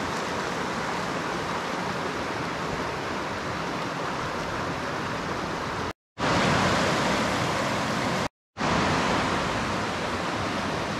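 Shallow river rushing over rocks and stones, a steady rush of water. It cuts out briefly twice, and is louder between the two cuts.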